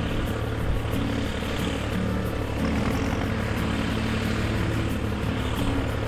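Ford tractor's diesel engine running steadily under load while pulling a plough through the soil.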